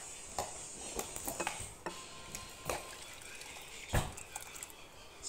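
Hot liquid jelly being poured from a steel pan into a glass bowl, with light clicks and taps of the pan against the bowl's rim and a sharper knock about four seconds in.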